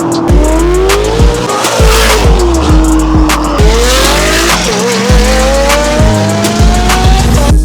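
Music with a steady thumping beat, over a Ferrari 488's twin-turbo V8 accelerating hard. Its pitch climbs, drops back at each upshift and climbs again.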